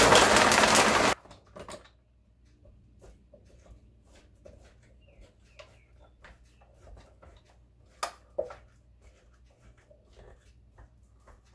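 Countertop blender switched on, running loudly for about a second on a thick jar of frozen fruit, yogurt and milk, then cutting off suddenly; the mix is too thick and needs more milk. Later come a few light clicks and two sharper knocks.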